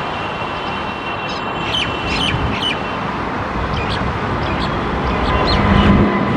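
Steady jet noise from a Boeing 787's engines at climb-out thrust. Several short bird chirps sound over it, about a second in and again around four to five seconds in.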